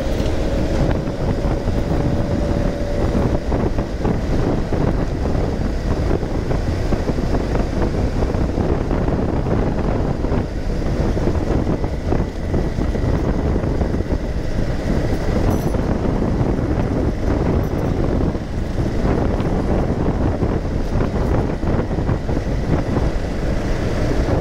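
Motorcycle running at a steady cruising speed of about 50–60 km/h, the engine's drone mixed with loud wind and road noise.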